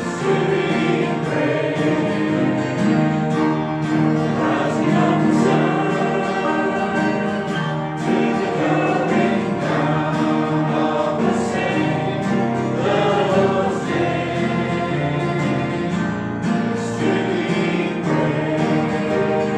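A congregation singing a gospel hymn together, accompanied by guitar.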